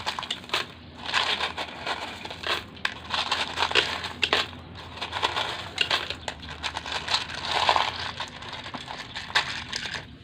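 Small coloured gravel rattling and crunching as hands dig and stir through it, a dense run of quick clicks of pebble on pebble.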